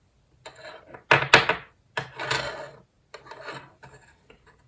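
Soldering iron tip scraping gold-plated pads off a mobile phone circuit board: a series of short scratchy strokes, about one a second, the second the loudest.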